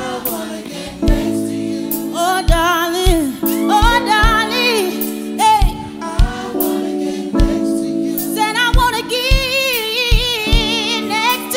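A woman sings long, wavering held notes with a live band, over sustained chords and a slow, steady kick drum.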